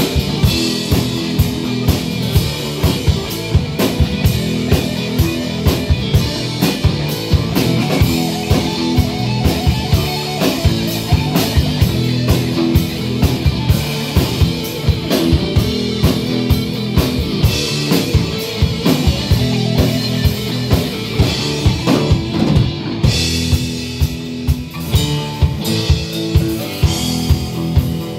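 Live rock band playing an instrumental passage: electric guitars, bass guitar and drum kit, the drums keeping a steady beat.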